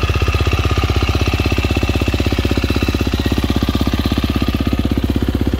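2023 KTM 350 SX-F's single-cylinder four-stroke engine idling steadily, with an even, rapid exhaust beat.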